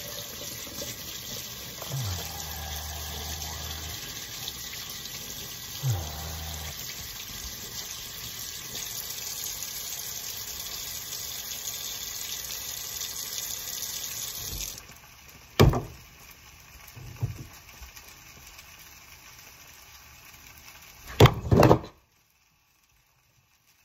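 Kitchen faucet running steadily into the sink, shut off about fifteen seconds in; a few sharp knocks follow.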